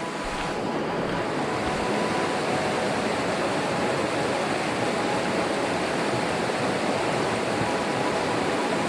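River water rushing steadily, a constant hiss with no distinct splashes.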